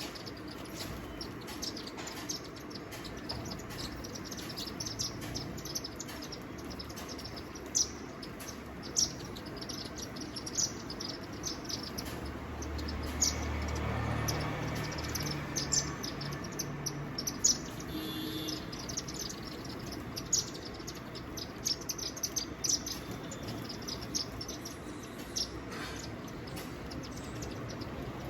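Small birds chirping: many short, high chirps scattered and overlapping throughout. A low rumble swells briefly about halfway through.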